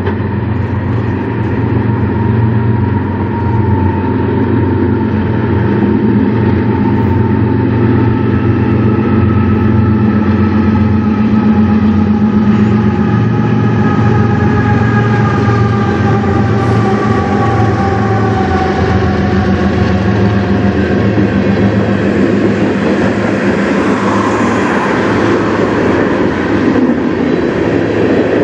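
CN freight train with diesel locomotives approaching and passing on the near track. A steady low engine rumble carries a whine that slowly falls in pitch as the locomotives go by, and freight cars roll past with wheel clatter near the end.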